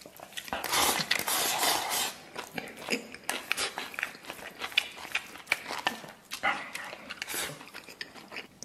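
Close-up eating noises: wooden chopsticks clicking and scraping against a steel bowl while a mouthful of mixed rice is shovelled in, with noisy sucking-in and chewing, loudest about a second in and again near the end.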